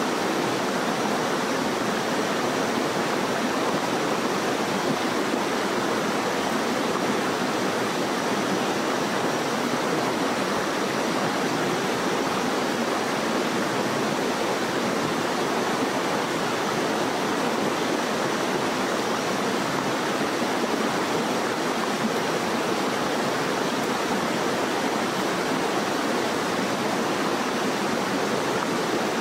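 Steady rush of flowing water, even and unbroken, with a faint thin high tone held above it.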